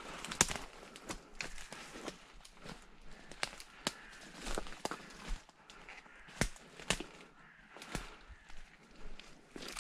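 Footsteps through dry leaves and undergrowth, with irregular sharp crackles and snaps over a steady rustling of brush.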